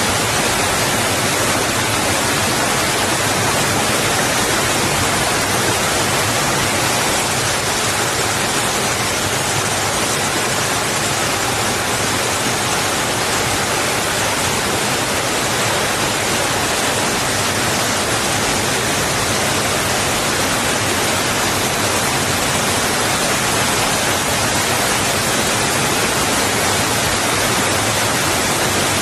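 Water rushing steadily over and against rocks: a constant, even hiss with no separate splashes or wave surges.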